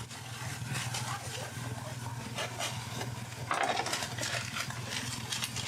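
Deli kitchen sounds: a steady low hum under scattered short clinks and scrapes, with a few brief snatches of voices.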